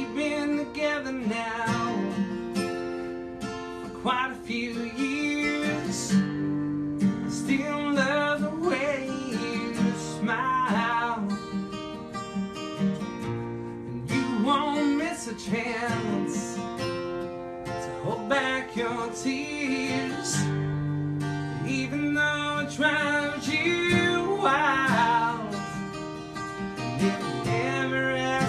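A solo country song performed live: an acoustic guitar being strummed while a voice sings over it in phrases.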